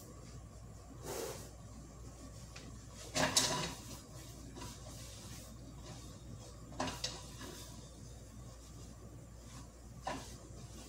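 Cookware being handled at the stove: four short separate clanks and clatters of pans and utensils, the loudest about three seconds in.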